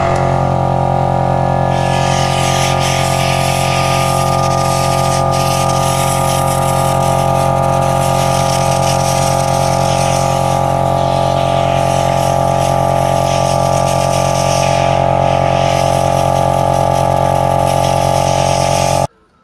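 Air compressor running with a steady hum, and from about two seconds in the hiss of a compressed-air blow gun, rising and falling, as dust is blown out of a KAMAZ truck's cylindrical air filter element. Both cut off suddenly near the end.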